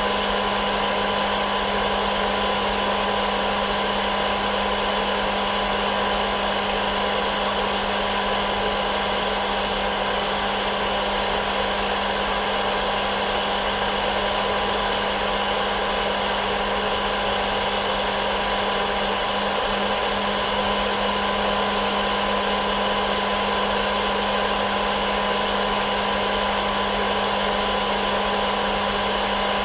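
Hair dryer running steadily as a white-noise track: a constant rush of air over a steady motor hum.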